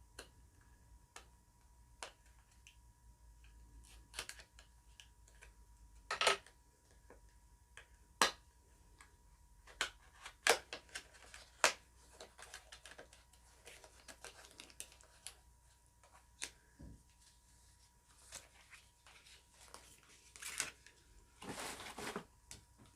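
Scattered clicks and taps of a makeup palette and its packaging being handled and opened, with short rustles and a longer rustle or tear near the end.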